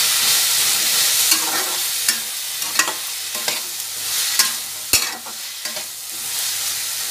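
Potato cubes, onion and tomato sizzling in oil in a metal kadai while a metal spatula stirs and scrapes them around the pan, with scattered clinks of the spatula against the pan and one sharp knock about five seconds in.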